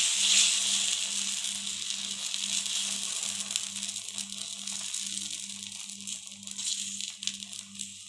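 Moong dal batter sizzling on a hot tava as a ladle spreads it in circles, the sizzle fading steadily as the batter settles, with a few light scrapes of the ladle on the griddle.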